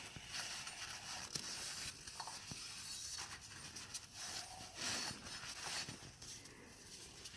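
Faint rustling and scattered light clicks and taps of hands handling parts and packaging.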